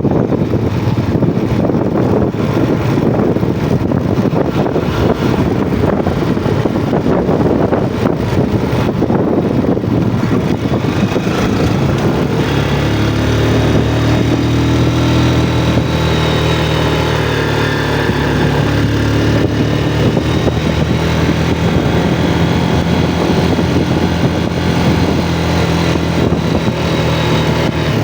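Yamaha Jupiter MX motorcycle engine running while riding, with a rushing wind noise on the microphone through roughly the first ten seconds. After that the engine's steady note comes through clearly, its pitch drifting a little.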